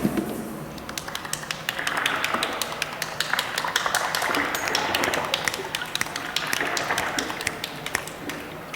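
A dense, irregular patter of small clicks and taps from many people at once, made by hand with finger snaps and taps, over a soft hiss.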